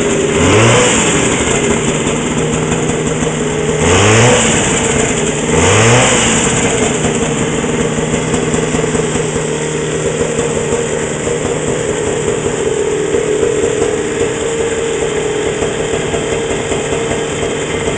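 Freshly installed JLO 399 two-stroke twin snowmobile engine running: it is blipped briefly three times in the first six seconds, each a short rise and fall in pitch, then settles into a steady idle.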